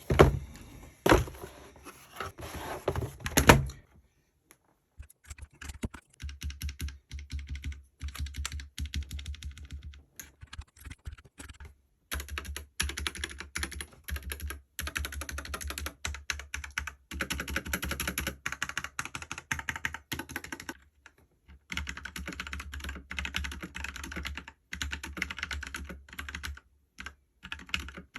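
ABKO Hacker K590 mechanical keyboard with brown tactile switches being typed on in quick runs of keystrokes, broken by short pauses. The first few seconds hold a handful of heavier, louder strikes.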